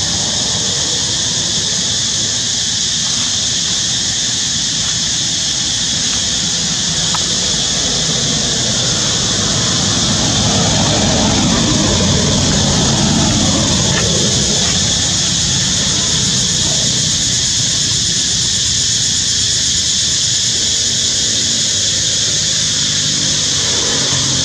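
Steady outdoor ambience: an even high-pitched drone over the low rumble of motorbike traffic on a road, swelling a little about halfway through as a vehicle passes.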